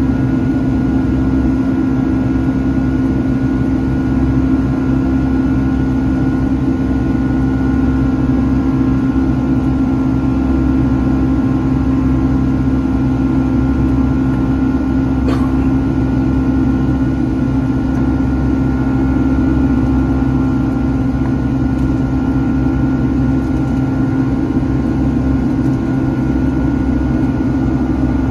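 Boeing 757-300 turbofan engines at climb thrust, heard inside the cabin: a loud, steady drone with a strong low hum and a fainter high whine.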